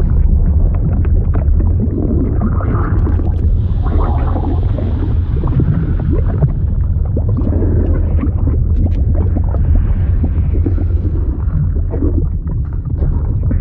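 Synthetic fluid sound effect: a steady deep rumble with many small pops and ticks over a shifting liquid wash.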